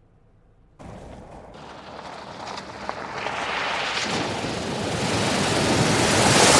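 Water splashing and spraying as a Mercedes-Benz GLB SUV drives through a shallow ford. The sound starts suddenly about a second in and grows louder as the car approaches, loudest near the end as the spray sweeps past.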